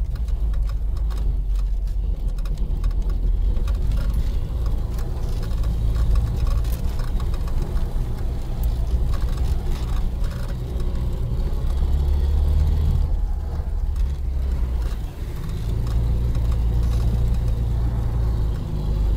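UAZ-469 engine running as the vehicle drives off-road: a steady low drone whose pitch shifts up and down with the throttle, easing off briefly about fifteen seconds in before picking up again.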